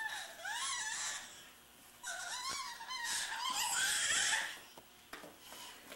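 A baby's high-pitched squeals and babbling, in two stretches of rising-and-falling cries, the second longer.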